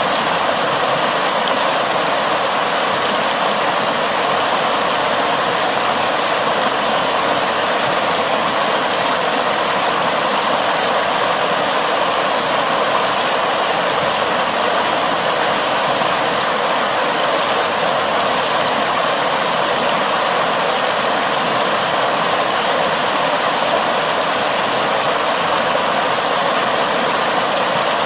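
Fast floodwater rushing in whitewater over and around a concrete slab: a loud, steady rush of churning water with no let-up.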